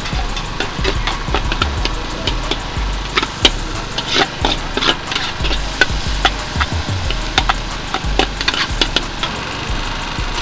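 Char kuey teow stir-frying in a wok: a metal ladle scraping and clinking against the wok many times over a steady sizzle.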